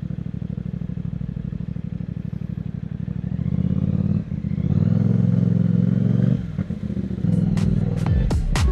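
CFMOTO 450SRS parallel-twin engine running at low revs with a steady fast pulse, then opening up and pulling harder from about three and a half seconds in. The sound drops briefly about four seconds in and again for about a second near six and a half seconds, as the throttle is rolled off, likely for gear changes. A few sharp clicks come in the last second.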